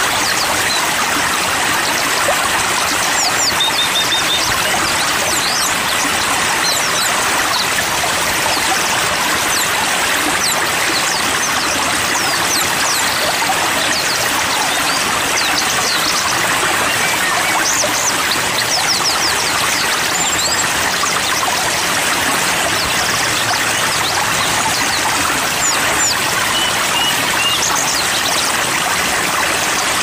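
Steady rush of flowing stream water, with scattered high, thin chirps and a few short trills from small songbirds.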